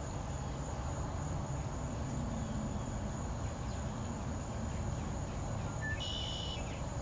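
Steady high-pitched drone of insects calling in the evening, over a low rumble of outdoor background noise, with a brief high chirp about six seconds in.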